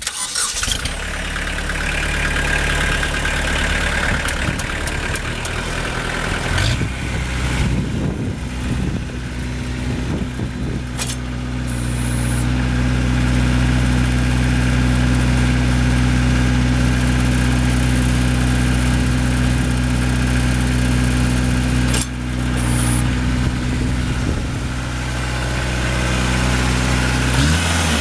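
Kubota B3200 compact tractor's three-cylinder diesel engine running steadily as the tractor is driven across gravel; the engine note drops near the end.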